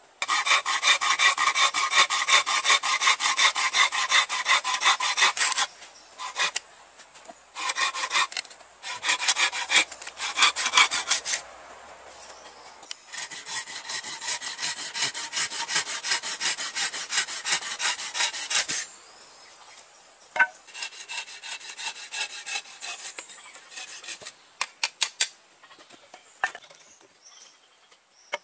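Folding hand saw cutting through a bamboo pole with quick back-and-forth strokes, in several spells with short pauses. After that come lighter scraping strokes and a few sharp clicks near the end.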